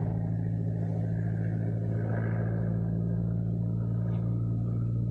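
Propeller aircraft engine droning steadily, heard from inside the plane.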